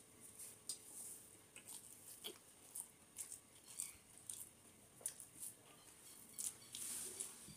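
Faint eating sounds: fingers mixing rice with fish curry on a metal plate, and chewing, heard as irregular small clicks and wet squelches.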